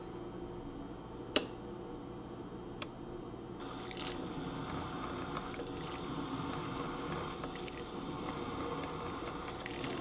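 Ninja 12-cup drip coffee maker starting its brew: a sharp click about a second and a half in and a lighter one shortly after, then from about three and a half seconds in a steady hiss with small crackles as the heater sends hot water through and coffee begins to stream into the glass carafe.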